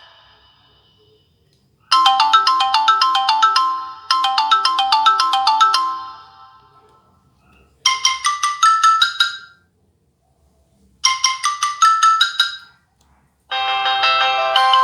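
Samsung Gravity Q (SGH-T289) phone ringtones playing: a short melody of quick electronic notes played twice, then a different phrase with a rising run played twice with pauses between, and a fuller, denser ringtone starting near the end.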